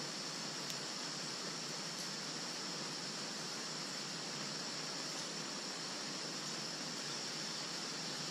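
Steady, even hiss of background noise, brightest in a high band, with no distinct events.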